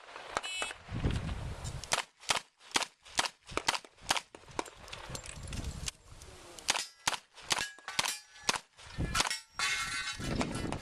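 A quick string of revolver shots, with the clang and ring of bullets hitting steel targets mixed in among them.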